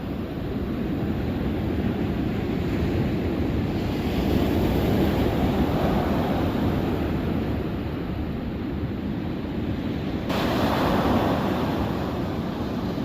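Ocean surf washing onto the beach, a steady rush that swells twice as waves come in, with wind buffeting the microphone.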